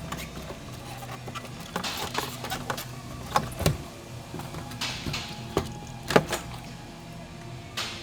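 Scattered clicks and knocks of plastic fuel pump module parts being handled and pulled apart, the sharpest about three and a half seconds in and just after six seconds.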